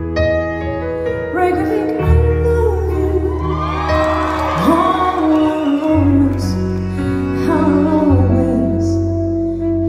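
Live band playing a slow ballad, with a saxophone and a woman singing over sustained bass and keyboard chords.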